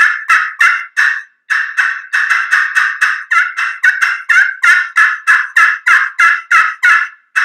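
Excited turkey yelping worked on a slate call with a striker: a long fast run of sharp yelps, about three a second, with one brief pause a little over a second in. It is played out toward the edge of the slate, where the call gives its louder, attention-getting yelp.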